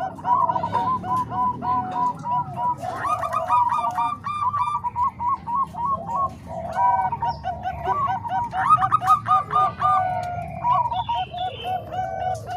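Zebra doves (perkutut) cooing, rapid runs of short repeated coo notes at two pitches overlapping one another.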